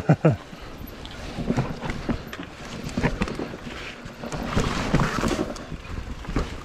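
Mountain bike ridden over a rough forest trail: an uneven run of knocks and rattles from the bike and tyres hitting roots and rocks, with tyre and wind noise swelling about two-thirds of the way through.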